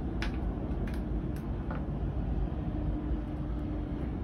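Steady low rumble with a few faint clicks and a faint steady hum.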